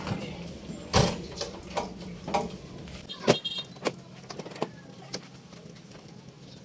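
A string of knocks and clicks, the loudest about a second in and about three seconds in, over a low steady hum that stops just after the second loud knock.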